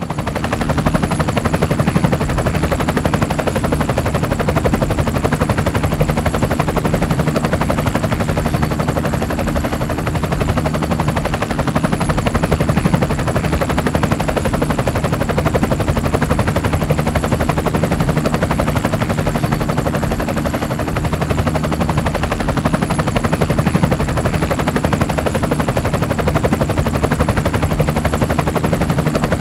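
Multirotor camera drone's motors and propellers buzzing steadily in flight, a dense rapid drone with a constant pitch.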